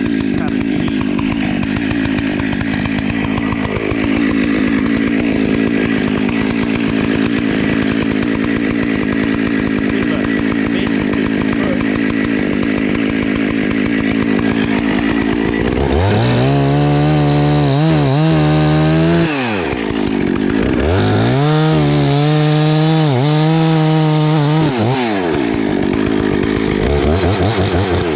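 Husqvarna 288 two-stroke chainsaw cutting into a tree trunk, running steadily under load, then revved up and let drop twice in the second half before going back in.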